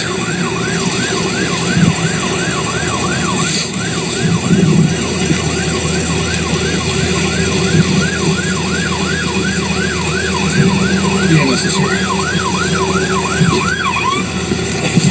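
Emergency vehicle siren in a fast yelp, a rising-and-falling wail repeating about two and a half times a second, cutting off about fourteen seconds in. A vehicle engine idles steadily underneath.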